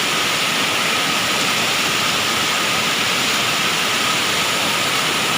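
Lata Kinjang waterfall: a steady, even rush of falling water.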